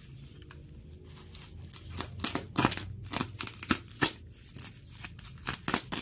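Plastic packaging wrap crinkling and crackling as it is handled, in a quick run of sharp crackles from about two seconds in.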